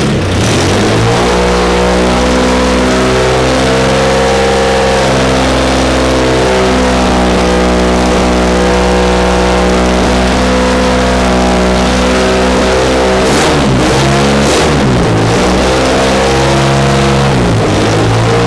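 Citroën SM's 2670 cc Maserati V6 running on an engine test bench. It revs up at the start and holds a steady speed, then the throttle is eased off and opened again a little past the middle and once more near the end.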